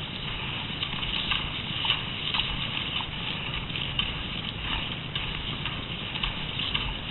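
Cross-country skis gliding over packed snow with a steady swish, and ski poles planting with sharp clicks about once or twice a second.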